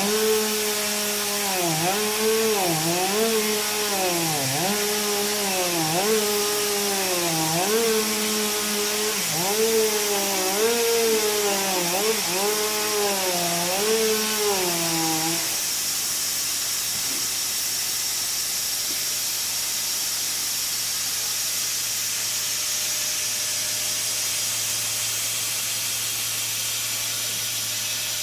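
A motor-driven saw cutting wood, its pitch dipping about once a second as it bogs under each cut. It stops about halfway through, leaving a steady low machine hum and hiss.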